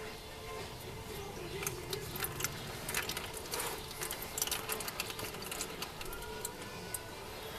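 Scattered short clicks and scrapes of hand work on a spin-on oil filter under the car, thickest about two to five seconds in, over a steady low hum.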